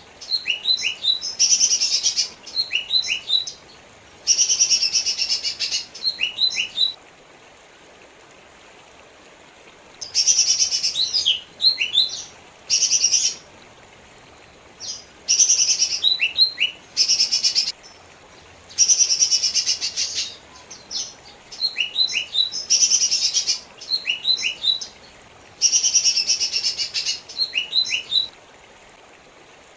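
Lesser green leafbird (cucak ijo mini) singing. It repeats phrases of dense, rapid chatter mixed with quick downward-sliding whistled notes, each phrase about one to two seconds long, with a few pauses of several seconds.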